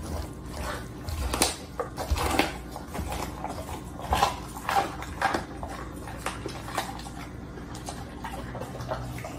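A pit bull-type dog chewing a whole raw chicken: irregular wet clicks, smacks and crunches as it bites and tears at the meat and bone.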